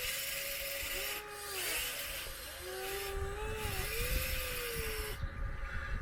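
Electric motors and hydraulic pump of a 1/14 scale RC excavator whining, the pitch rising and falling as the machine is worked. A hiss switches on and off with it, and there are low knocks underneath.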